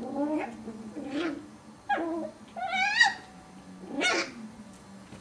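Chihuahua puppy whimpering: about five short, high-pitched whines roughly a second apart, some rising in pitch, the loudest about three seconds in.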